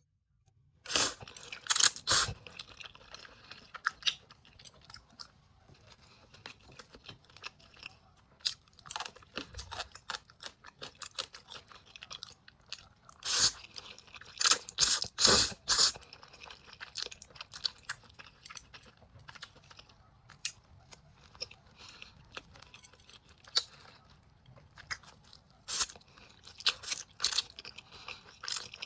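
Close-miked chewing and eating: wet mouth clicks, smacks and bites in irregular bursts, loudest about a second in, again around the middle and near the end.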